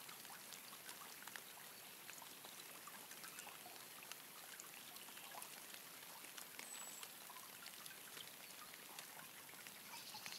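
Faint light rain: scattered raindrop ticks over a soft hiss.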